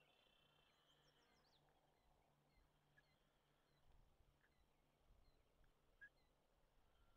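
Near silence: faint outdoor ambience, with a fly buzzing faintly for the first second or so and a few short, faint bird chirps later on.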